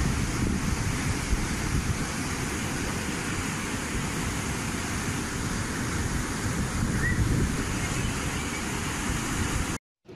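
Floodwater rushing down a street, a steady noise of running water with wind buffeting the microphone; it cuts off abruptly near the end.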